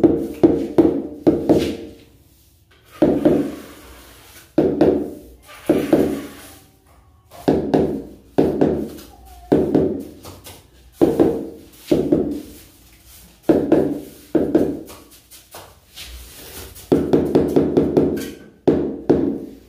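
Rubber mallet tapping large floor tiles to bed them into the fresh mortar beneath: short runs of quick, dull knocks with brief pauses between, about one run every second or so, and a longer run of rapid taps near the end.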